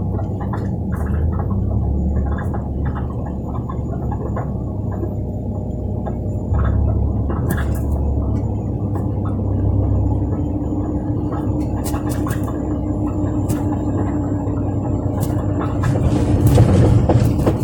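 Suzuki Hustler driving, heard from inside the cabin: steady road noise with a short squeak ('kyu-kyu') repeating irregularly from the rear suspension. The squeak comes from a worn bushing pressed into the rear trailing arm.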